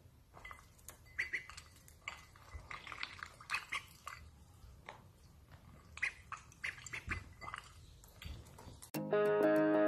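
Ducklings dabbling their bills in a glass of water: a run of short wet clicks and splashes with a few brief peeps. Guitar music starts suddenly near the end.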